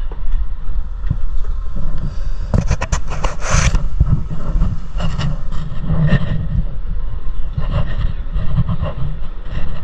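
Mountain coaster carts on the steel track at the station: a steady low rumble with irregular clacks, knocks and scrapes, including a quick run of sharp clicks a few seconds in.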